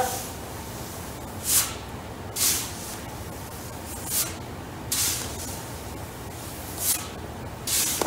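Shovel scooping and tossing loose wheat: about six short grainy swishes, roughly a second apart, over a low steady hum.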